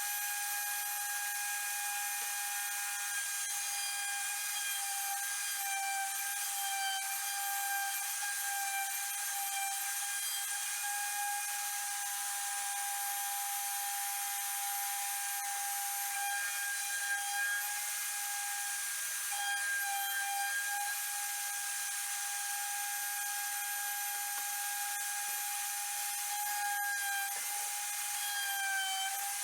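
CNC router spindle running with a steady high whine over a hiss as it mills a wooden cutting board. The pitch dips slightly near the end.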